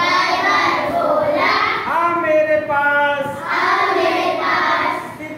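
A group of children singing a Hindi rhyme together in unison, with long held notes.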